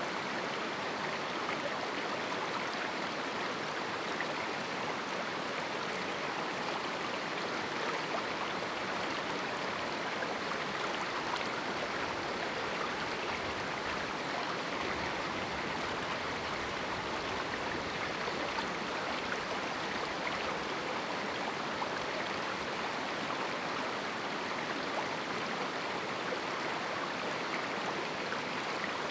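A shallow river rushing steadily over rocks, a continuous even wash of flowing water.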